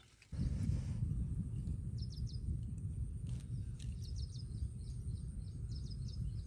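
Wind buffeting the microphone in a low, steady rumble, starting abruptly a moment in, with a small bird chirping in quick runs of three or four notes, three times.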